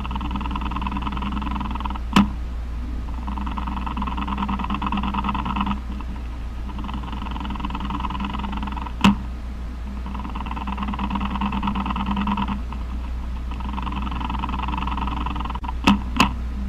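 Male jumping spider's courtship vibrations, picked up from the stem and made audible. A buzzing rasp comes in repeated bouts of about two and a half seconds, with short gaps between them, over a steady low hum. A few sharp clicks come about two seconds in, about nine seconds in, and twice close together near the end.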